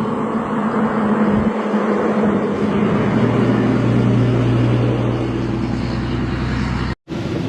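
Heavy diesel engine running steadily, its hum settling to a lower, steady pitch about three seconds in; it cuts off abruptly near the end.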